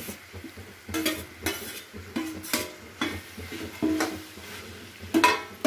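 Steel spoon scraping and knocking against a steel kadhai as torn roti pieces are stirred into hot masala, with a light sizzle underneath. The strokes come about a second apart, the loudest near the end.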